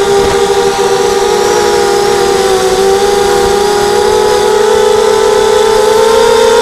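Mini quadcopter's four Tiger MN1806 2300kv brushless motors spinning Gemfan 5030 two-blade props, a loud steady whine picked up by the camera on the quad itself. The pitch sags a little in the middle and climbs again near the end as the throttle changes.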